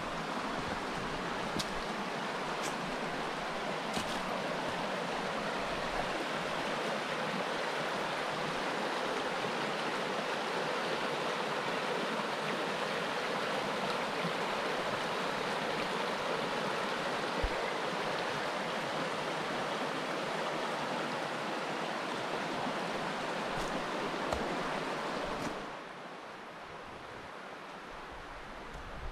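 Rushing river water, a steady full rush. About 25 seconds in it drops abruptly to a quieter rush.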